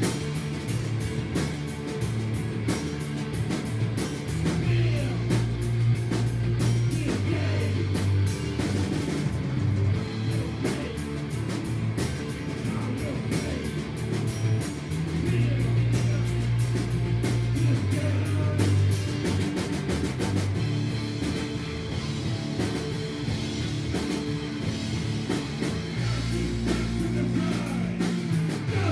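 Live rock band playing: electric guitar and drum kit, with dense drum hits over strong low notes that change every second or two.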